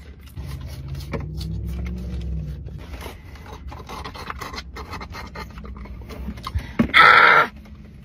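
A low, wavering hum for about two seconds, then light clicks and rustles of eating and handling food packaging. About seven seconds in comes a loud half-second slurp of a straw drawing the last of a juice box.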